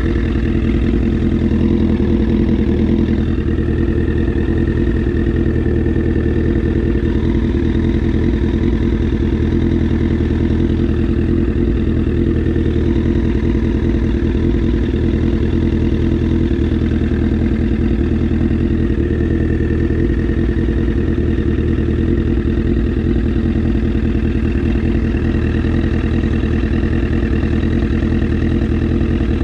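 2008 Yamaha R6's inline-four engine idling steadily through an Akrapovic megaphone exhaust.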